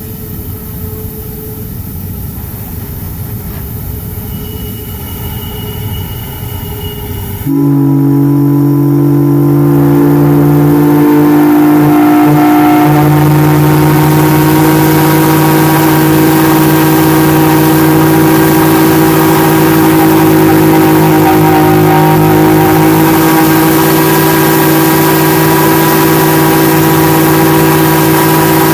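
A big multi-note whistle, of the kind sounded at a whistle blow, starts suddenly about seven seconds in and holds a loud, steady chord of several low notes. Before it comes a quieter, rumbling noise.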